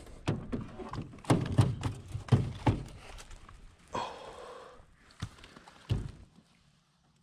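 Knocks and thumps from a landing net with a freshly caught bass in it coming down against an aluminum boat. They are densest in the first three seconds, with a short rush of noise about four seconds in and one more thump near six seconds.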